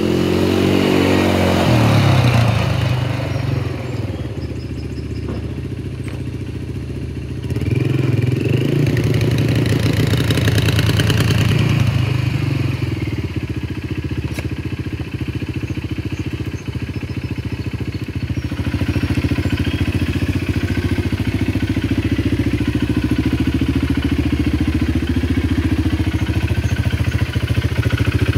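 2022 Arctic Cat Alterra ATV engine running as the quad is ridden: the pitch falls over the first few seconds, rises and stays higher for a few seconds around the middle, then settles into a steady run for the last ten seconds or so.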